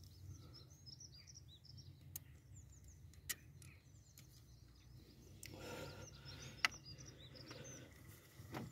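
Small birds chirping in the background over a faint steady low hum, with a few sharp clicks from small parts being handled as a fuel-line fitting is pushed onto the high-pressure pump. The loudest click comes about two-thirds of the way through.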